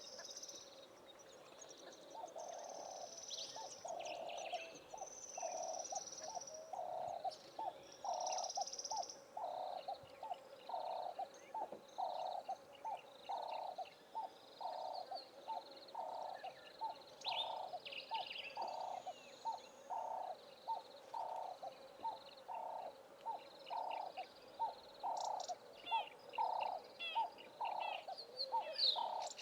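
Wild birds calling in the South African bush: a long, steady series of low hooting notes repeated a bit more than once a second, with higher chirps and short whistles from other birds over it.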